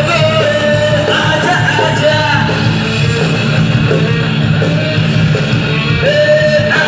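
Rock band playing live: electric guitars, bass and drums with a singer's voice over them.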